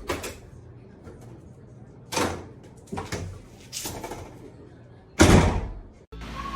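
Several sharp knocks and bangs, the loudest and heaviest about five seconds in; the sound cuts off abruptly near the end.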